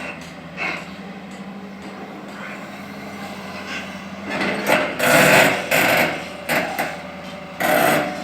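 Excavator loading soil into a dump truck: the engine hums steadily under loud rushing, clattering surges about five seconds in and again near the end as bucket loads of earth are dumped into the truck bed.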